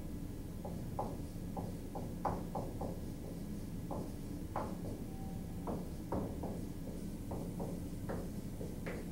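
Marker writing on a whiteboard: a run of short, irregular strokes and squeaks as letters are written, over a low steady room hum.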